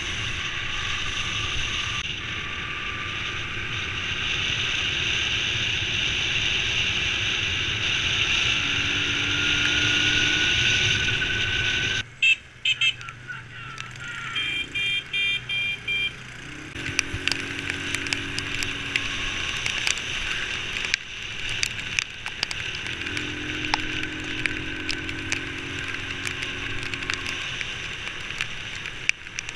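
Motorbike riding along a road, its engine running steadily under wind noise on the camera, with a faint whine slowly rising in pitch. About twelve seconds in the sound drops and changes abruptly, then the riding noise carries on.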